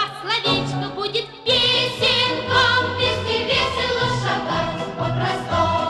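Music with singing voices, a melody in wavering sung lines; a fuller, denser passage begins about a second and a half in.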